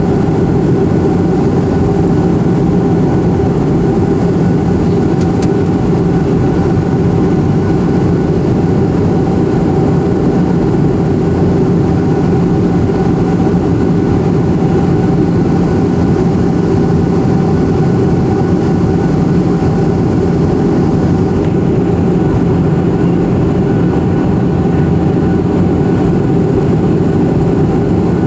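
Steady cabin noise of an airplane in flight: a constant low rumble of engines and rushing air with a few faint steady hums, unchanging throughout.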